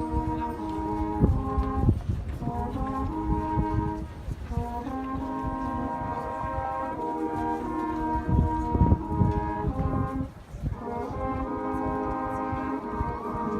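High school marching band's brass section playing sustained chords that shift every couple of seconds, with low thumps beneath and brief breaks between phrases.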